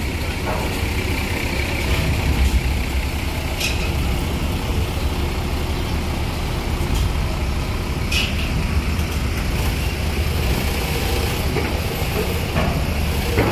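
A large intercity coach's diesel engine running as the bus creeps up a steel ferry loading ramp, a steady low rumble. There are two short hisses of air from its brakes, about three and a half seconds and eight seconds in.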